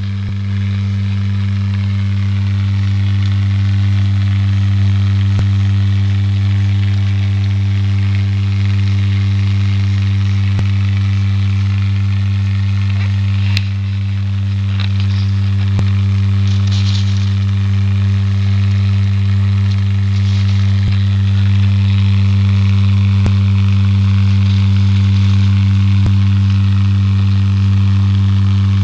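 Vibrating gag gift's motor buzzing with a steady, low hum, with a few faint clicks scattered through it.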